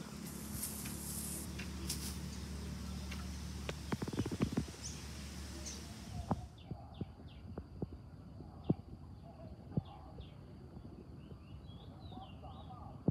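Birds chirping in short calls, with scattered small clicks and rustles. A steady hiss and low hum fill the first half and stop abruptly about six seconds in.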